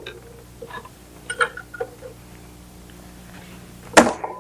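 A few light clicks and taps, then one sharp knock about four seconds in, over a low steady hum.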